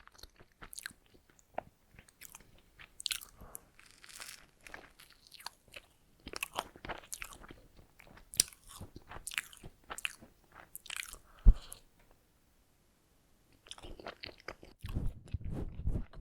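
Close-miked chewing of donuts: biting and crackly chewing clicks moving between the ears, with one sharp thump about two-thirds through and a denser, lower stretch near the end.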